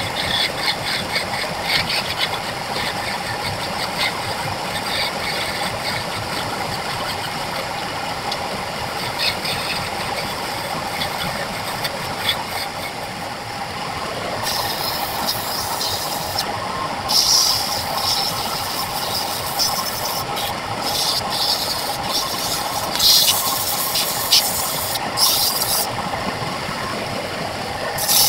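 Wood lathe running steadily, with a tool scraping against the spinning segmented wood blank in irregular bursts from about halfway through.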